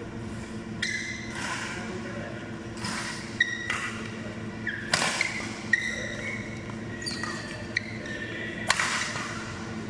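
Badminton rally in an echoing hall: a string of sharp racket strikes on the shuttlecock, about one every second or so, mixed with short high squeaks of court shoes on the synthetic floor.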